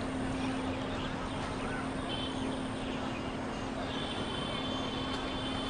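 Steady outdoor background noise with a constant low hum, and faint high steady tones in the second half.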